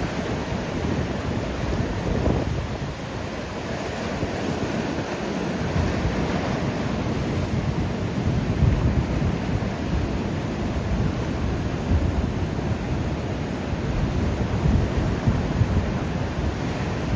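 Ocean surf washing onto a beach in a continuous roar of noise that swells and eases as waves break, with wind buffeting the microphone as a rumble underneath.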